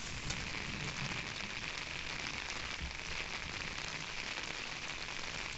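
Heavy rain falling steadily, heard from under an umbrella held overhead.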